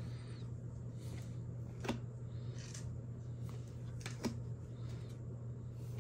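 A steady low room hum, with a few soft clicks and brushes from trading cards being flipped through by hand, about two and four seconds in.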